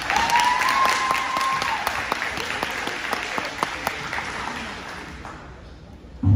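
Audience applauding and cheering in a gymnasium, with one long high call held over the clapping in the first two seconds. The applause fades over about five seconds, and low music starts abruptly near the end.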